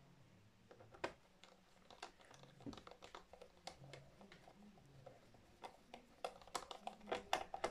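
Irregular small clicks and taps of laptop parts being handled and pressed back into place during reassembly, with a denser run of sharper clicks toward the end.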